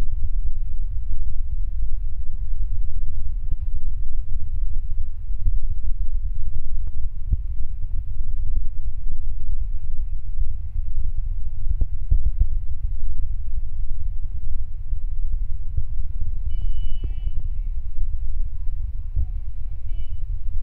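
Mobile crane's engine running as it lifts a steel pontoon section: a steady low rumble with scattered clicks and knocks. A brief high-pitched tone sounds twice near the end.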